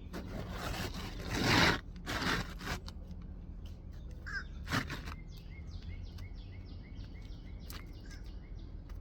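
Rustling and scraping of an asphalt 3-tab shingle being handled and slid into place for the first few seconds, loudest about a second and a half in. In the second half a bird calls with a quick run of short repeated chirps, about three a second.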